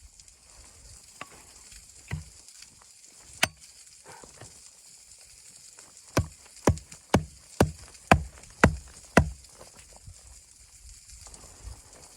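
A few scattered sharp knocks, then a quick series of about seven knocks, roughly two a second, over a faint steady hiss.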